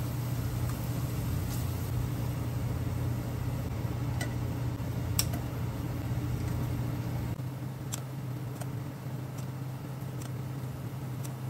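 Pork belly sizzling in a frying pan over a steady low hum, with a few sharp clicks. The low hum thins about seven seconds in.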